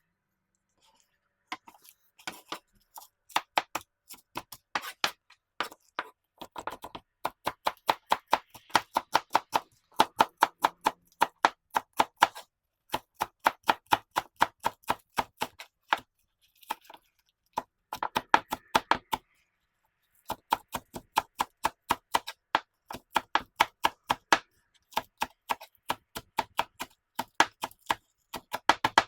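A kitchen knife chopping on a cutting board: quick, even strokes in runs of a few seconds, with short pauses between runs.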